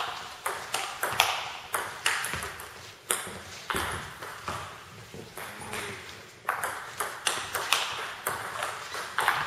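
Table tennis rally: the celluloid-type ball clicking off rubber-faced bats, one faced with Nittaku Monophonic short-pimpled rubber, and bouncing on the table, a quick run of sharp knocks with a lull of about two seconds midway. Each knock rings briefly in a gym hall.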